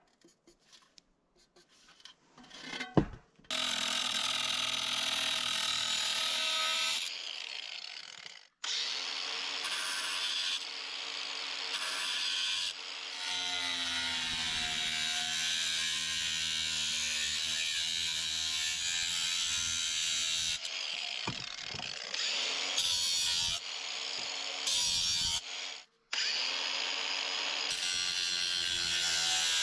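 Angle grinder cutting through a metal heater vent pipe, running in several stretches with brief stops and its whine wavering in pitch as the disc cuts. A few light clicks and one sharp knock come just before it starts, about three seconds in.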